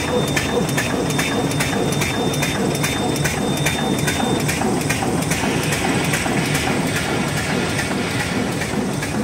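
CW-800NJT glue patch handle bag-making machine running at production speed: a dense mechanical clatter with a regular beat of about two and a half strokes a second, in step with its side-sealing and cutting cycle. A thin high whine runs through it and stops about halfway through.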